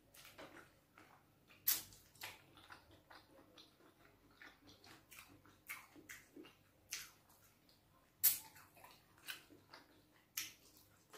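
Close-miked wet mouth sounds of eating bitter leaf soup and fufu: chewing with an irregular string of sharp smacks and clicks, two of them louder, about two seconds in and again about eight seconds in.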